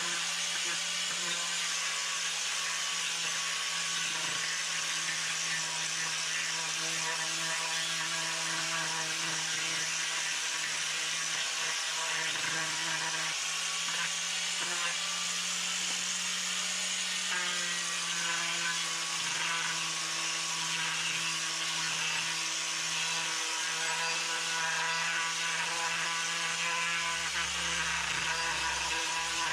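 A handheld power tool running steadily while working wood, with a high whine and hiss; its pitch shifts a little about halfway through.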